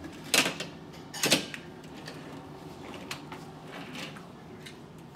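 Toy cars clacking together as they are handled and set down: two sharp clacks in the first second and a half, then a few fainter ticks.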